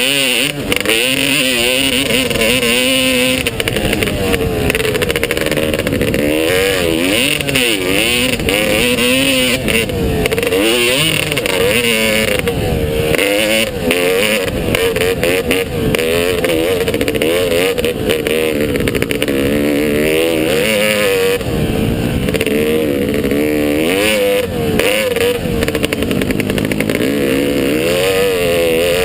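Motocross motorcycle engine running hard, its pitch rising and falling again and again as the throttle is opened and closed, with frequent short knocks mixed in.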